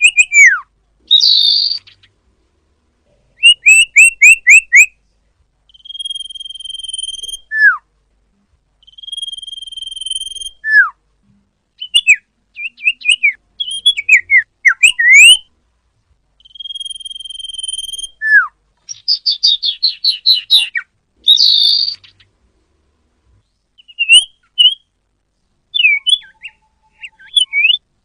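Song of a sirpu (sirdung) bird: phrase after phrase of clear held whistles that end in a falling sweep, quick runs of short notes, and buzzy trills, with short pauses between phrases.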